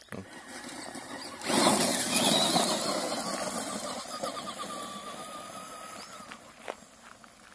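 Traxxas Rustler XL-5 RC truck's brushed electric motor whining as the truck accelerates hard over gravel, tyres crunching the stones. It starts suddenly about a second and a half in, then fades as the truck drives away.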